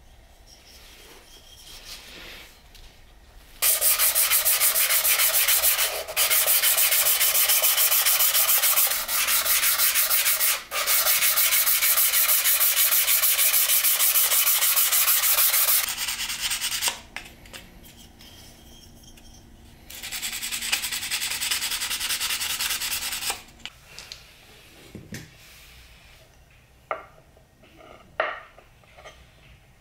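Hand-sanding the metal end cap of a small wooden bar on a sheet of sandpaper laid flat on a board: quick back-and-forth rubbing in two long spells with brief pauses between. Near the end, a few light taps as the wooden bars are set down on the board.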